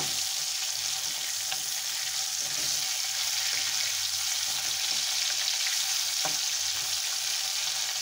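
Rui fish steaks sizzling steadily as they shallow-fry in mustard oil in a kadai, with a couple of faint taps from the spatula turning the pieces over.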